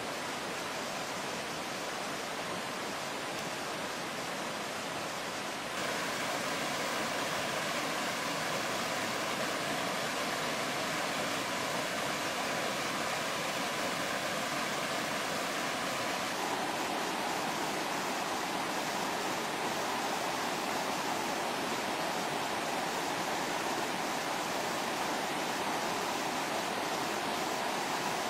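Flash-flood water rushing over rocky rapids: a steady, dense rush of water that steps louder about six seconds in and shifts in tone again around sixteen seconds.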